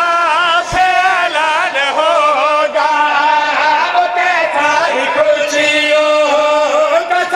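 Several men chanting a devotional verse together through microphones, in long drawn-out notes that waver and slide in pitch.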